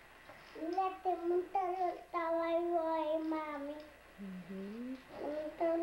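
A young child singing wordlessly in long held notes, with a lower voice sliding up briefly about four seconds in before the child's voice resumes.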